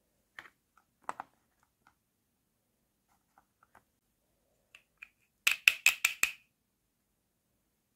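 Hard plastic toy food pieces being handled: a few soft taps and clicks, then a quick run of about six sharp plastic clacks as a toy ice cream cone and its pink ice cream top are handled together.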